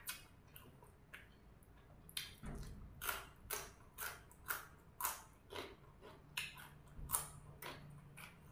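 A person biting and chewing a crunchy raw green vegetable stalk close to the microphone, with sharp crunches about twice a second starting a couple of seconds in.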